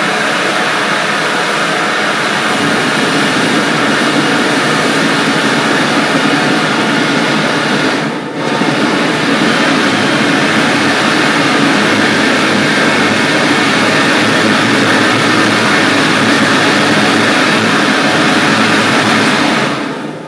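Homemade gas turbine engine running loudly and steadily on its propane start-up gas instead of liquid fuel, with a brief dip about eight seconds in, dying away at the very end.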